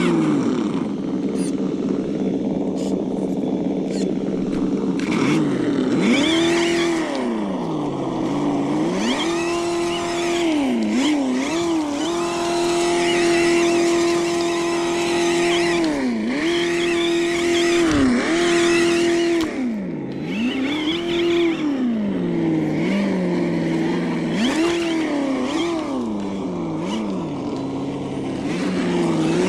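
Simulated engine sound from an ESS-One sound unit on an RC4WD 1/10 scale truck, revving up and dropping back again and again with the throttle, held at high revs for a few seconds around the middle.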